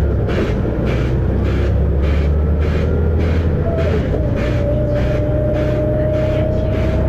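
Volvo B7RLE bus's diesel engine running under way, a steady low drone, with a thin whine that rises slowly in pitch from about halfway through.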